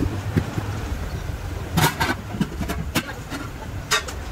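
Metal pot lids clattering against the rims of cooking pots and against each other as they are handled: several sharp metallic clanks, the loudest about two seconds in and just before the end, over a steady low rumble.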